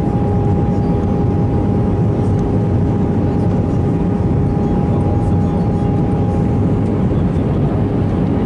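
Steady jet airliner cabin noise in flight, engine and airflow rumble with two faint steady tones running through it.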